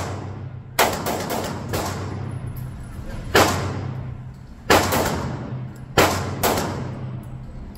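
Pistol shots fired one at a time in an indoor range, about six at uneven spacing, each ringing off briefly in the hall, over a steady low hum.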